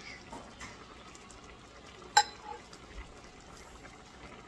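Quiet cooking at the stove over a pan of chicken in cream: low background sizzle and small handling noises, with one sharp clink that rings briefly about two seconds in.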